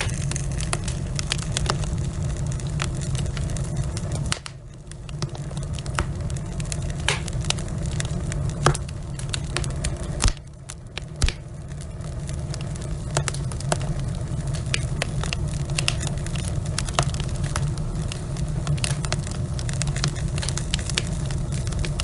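Wood logs burning in a fireplace, crackling and popping irregularly over a steady low rumble of the flames. Several louder single pops stand out, and the sound dips briefly twice.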